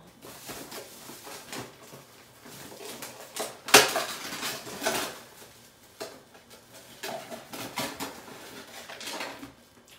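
Dishes and containers clattering and knocking as someone rummages through them, with a sharp knock just under four seconds in.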